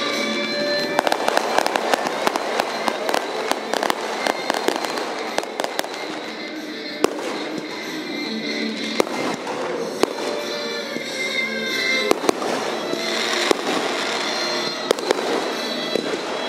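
Aerial fireworks bursting overhead: a continuous run of sharp bangs and crackles, densest in the first half and again near the end. Music plays along under the bursts.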